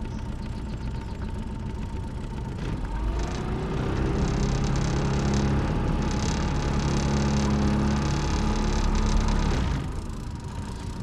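Boat motor running at low speed, then throttled up about three seconds in, its pitch rising and holding at higher revs, before easing back down near the end. A faint steady whine runs underneath.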